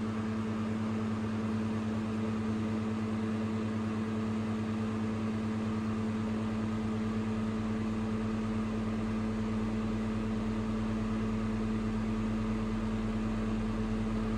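Steady electrical hum from a car-amplifier dyno bench. A deeper low hum joins about six seconds in as the amplifier's sine-wave test output is turned up toward its rated 1500 watts.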